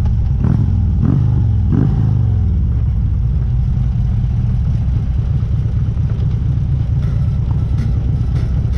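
Motorcycle engine with a low, steady rumble. The engine note swells briefly three times in the first two seconds, then settles to an even rumble as the bike slows onto a gravel turnout.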